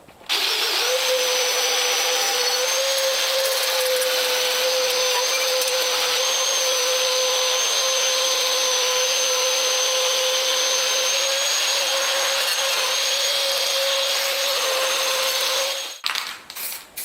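Electric power sander running steadily with a constant whine over a wide hiss as it sands down a mower's engine cover. It cuts off about a second before the end, and a few short, evenly spaced bursts follow.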